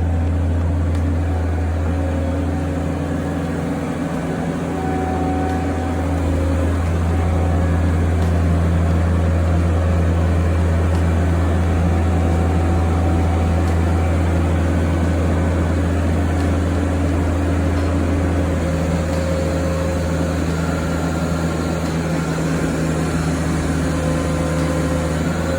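A steady low mechanical drone, like a motor or engine running, unbroken throughout with a few faint higher tones drifting over it.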